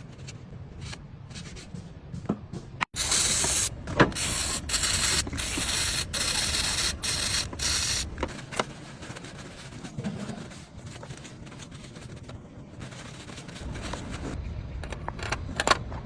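A hissing spray, loud and broken into several short bursts, begins about three seconds in and stops about five seconds later, over a low steady rumble and a few scattered clicks.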